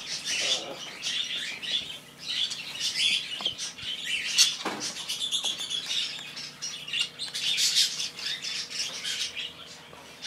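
Many small pet birds chirping and chattering together in quick, short, high calls, with one lower falling sound about four and a half seconds in.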